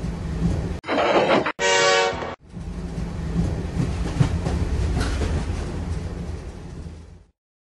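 Train sound effects: a locomotive's low engine rumble, a short hiss about a second in, and a horn blast of under a second at about two seconds. The rumble then returns, fades, and cuts off sharply near the end.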